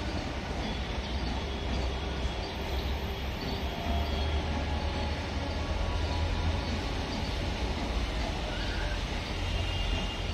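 ICF passenger coaches rolling past on the rails, a steady low rumble of wheels over the track.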